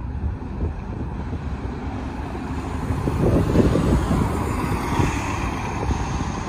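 A city transit bus drives close past: its engine and tyre noise swell about three seconds in as it goes by, then ease off a little as it pulls away.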